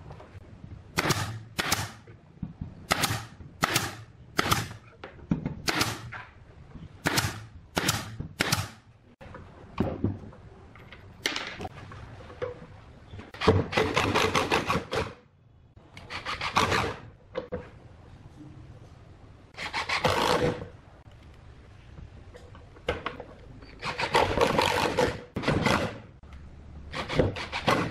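A run of about eleven sharp knocks, then a cordless impact driver running in five bursts of about a second each as it drives screws through caster-wheel mounting plates into pine.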